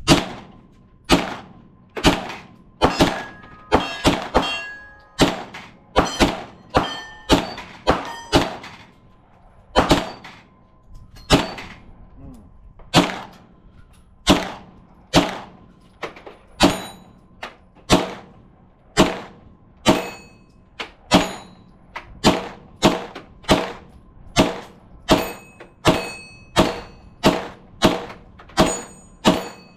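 A long string of single semi-automatic gunshots, about one and a half a second, with brief pauses around a third of the way in. Steel targets clang as they are hit and ring on between shots.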